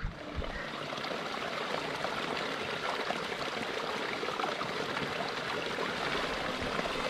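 Running water from a stream: a steady, even flow with no break.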